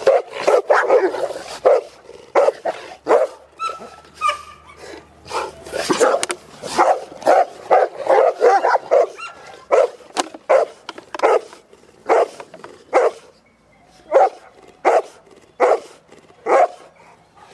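Cane Corso dogs barking in quick, repeated barks while play-fighting, thinning to single barks a little under a second apart near the end.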